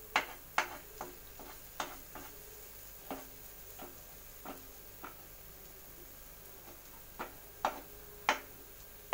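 Steel ladle tapping and scraping against a non-stick frying pan while spreading and rounding besan (gram-flour) cheela batter: irregular sharp clicks, with a faint sizzle of the batter cooking in butter underneath.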